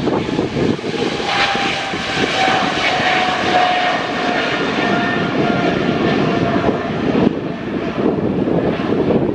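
Emirates Boeing 777 twin-engine jet climbing out after take-off, its engines at take-off thrust. A loud, steady jet roar carries a whine that slowly falls in pitch.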